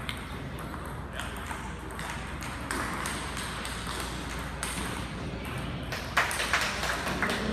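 Table tennis balls clicking off bats and tables in play at many tables around a sports hall, with sharper, louder clicks from about six seconds in.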